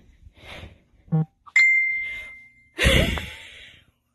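A single bright bell-like ding about a second and a half in, ringing on one clear tone and fading over about a second. It is followed by a short, loud burst of noise that dies away.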